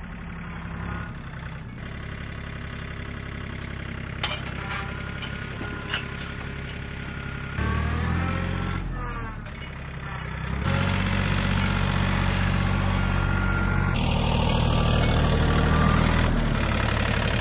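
TYM compact tractor's diesel engine running while its front loader lifts on a chain, with a couple of light knocks a few seconds in. The engine note changes about eight seconds in, and the engine runs louder and steadier from about eleven seconds on.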